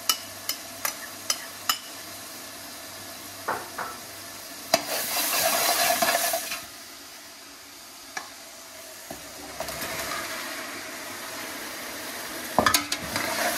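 Onions, garlic and ginger frying in oil in a large aluminium pot, stirred with a metal spoon that clinks against the pot. Sharp clinks in the first two seconds and again near the end, with a louder sizzle and scrape for about two seconds around five seconds in.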